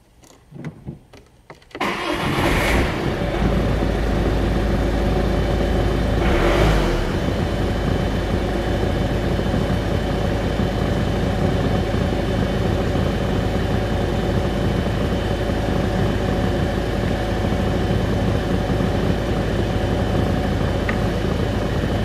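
Volvo V50 engine starting: a few faint clicks, then about two seconds in it cranks and catches with a short flare. It surges briefly once more a few seconds later, then idles steadily. The start follows a repair of the central electronic module's connectors, the cause of its immobilizer and starting faults.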